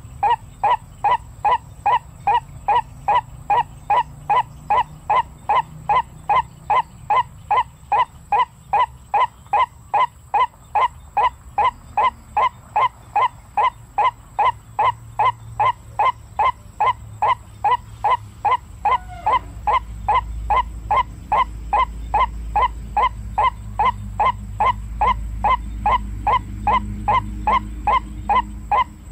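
White-breasted waterhen calling: a short, clipped 'quốc' note repeated evenly about three times a second, without a break. A low rumble builds underneath in the second half.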